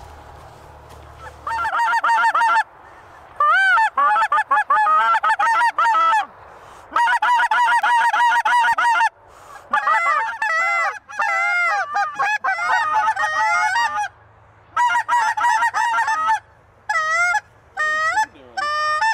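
Canada goose call blown by hand in several fast runs of honks and clucks, with short pauses between the runs. Near the end it slows to a few single honks.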